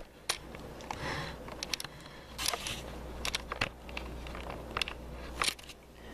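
Handling noises of makeup products and a makeup case being moved about: scattered sharp clicks and taps with light rustling, the loudest about two and a half seconds in and near the end.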